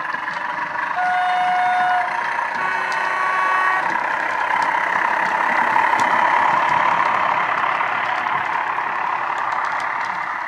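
DCC sound decoder in a Heljan OO gauge Class 14 model diesel, playing from the model's onboard speaker: the horn sounds two held notes, a lower one about a second in and then a higher one, over the running diesel engine sound. The rumble of the train on the track swells as the coaches pass, loudest midway, then eases off.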